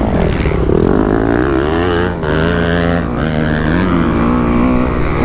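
Kawasaki KX250F four-stroke single-cylinder dirt bike engine revving up and down under the rider's throttle, with short dips in pitch around two and three seconds in, over wind noise on the microphone.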